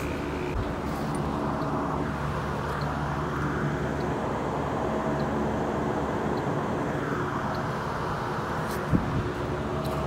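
Steady low mechanical hum with a faint even hiss, and a single knock about nine seconds in.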